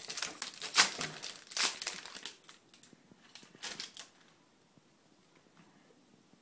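Foil booster pack of trading cards crinkling as it is torn open, the loudest crackle about a second in, then a few faint rustles and quiet.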